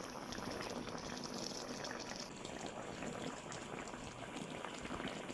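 Liquid bubbling and crackling at a boil in a cooking pan, steady, then cutting off suddenly at the end.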